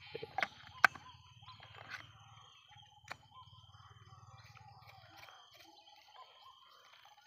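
Faint outdoor background with distant bird calls, and two sharp clicks, one about a second in and one about three seconds in.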